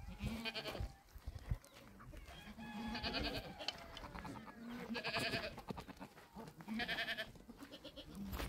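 Goats bleating: several separate wavering bleats from the herd, a second or two apart.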